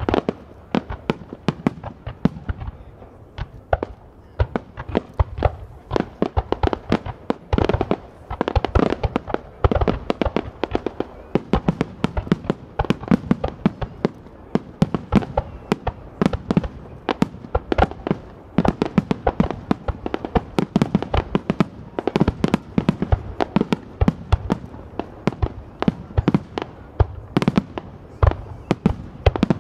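Japanese display fireworks by Haga Kako: aerial shells bursting overhead and low ground launches firing, a dense unbroken barrage of bangs, many a second.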